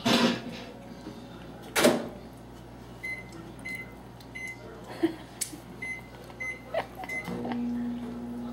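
Microwave oven keypad beeping a few times with short, even beeps, then the oven starting up with a steady low hum about a second before the end. Two thumps in the first two seconds.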